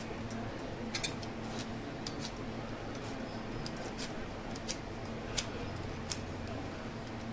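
Hand vegetable peeler working on a raw beetroot: irregular light clicks and scrapes, about a dozen over several seconds, over a steady low hum.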